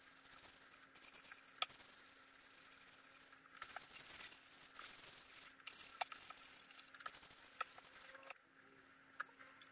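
Faint scratchy rubbing of a hand-held sanding pad over a clear-coated pine tabletop, with scattered light clicks, stopping about eight seconds in. A steady low hum runs underneath.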